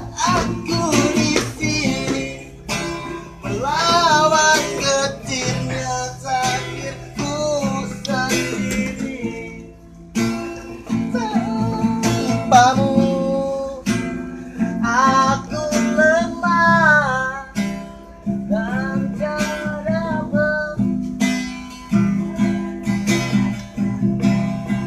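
Acoustic guitar strummed in chords, with a voice singing a melody over it.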